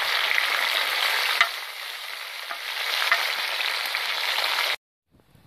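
Raw potato slices sizzling in hot lard on a steel disc-harrow frying pan, stirred with a metal spatula that clinks against the pan a few times. The sizzle cuts off suddenly near the end.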